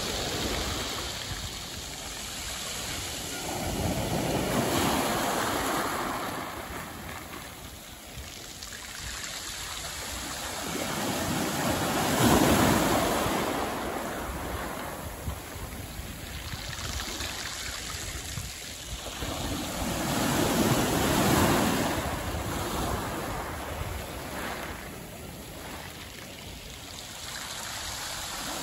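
Small sea waves washing up and drawing back over a beach of smooth, rounded black pebbles, swelling about every eight seconds, loudest about twelve seconds in.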